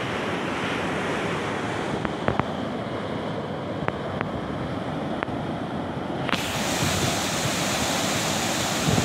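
Fast-flowing canal water rushing and churning through the sluice gates of a barrage, a steady roar of water, with a brighter hiss from about six seconds in.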